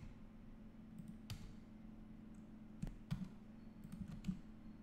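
A few faint, scattered clicks from working a computer mouse and keyboard, over a low steady hum.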